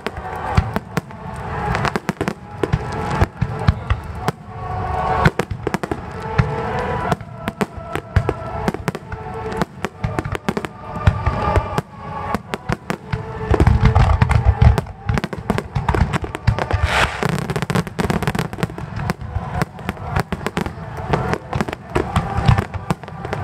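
A dense fireworks finale barrage: aerial shells bursting in rapid succession with sharp reports and crackle, and a run of heavy booms about fourteen seconds in. Music plays steadily underneath.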